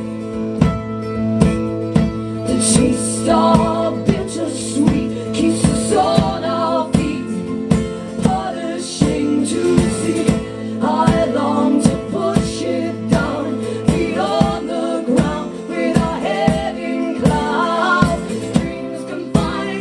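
Live acoustic folk-pop band playing: strummed guitars over a steady beat of about two strikes a second, with female voices singing wavering held lines over the top.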